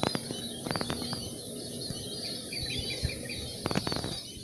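Small birds chirping busily in short, high, rapidly repeated notes, with a few clusters of sharp clicks about a second in and again near the end.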